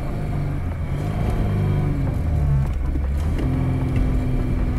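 Lada 2107's four-cylinder petrol engine running hard under load as the car drives through snow, its pitch rising and falling with the throttle.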